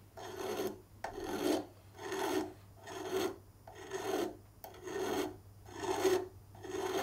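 Flat metal file drawn in steady strokes across the end of a silver bezel strip, about one rasping stroke a second. The end is being filed straight and square so the bezel's two ends meet in a tight, gap-free join for soldering.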